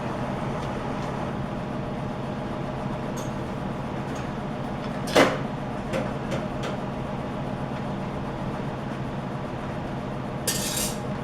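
Oxy-acetylene torch flame burning steadily during brazing, with a single sharp metal knock about five seconds in and a brief hiss near the end.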